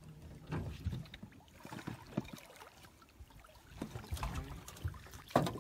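A hooked peacock bass thrashing and splashing at the surface beside the boat. Irregular splashes and sloshes come in clusters, with the loudest near the end.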